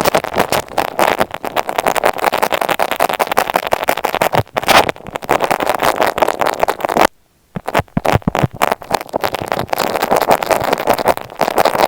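Close, dense crackling and scratching from objects rubbed directly against an earphone microphone, with a brief stop about seven seconds in.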